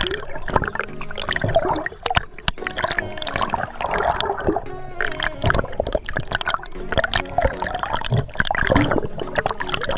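Water gurgling and bubbling with many sharp clicks and crackles, recorded through a camera in the sea, with background music under it.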